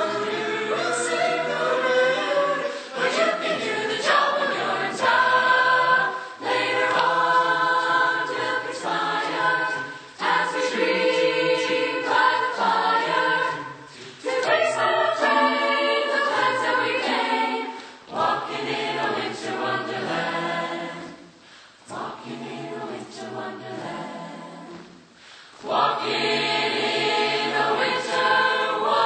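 High school choir singing in harmony, with a softer, quieter passage about two-thirds of the way through before full voices return near the end.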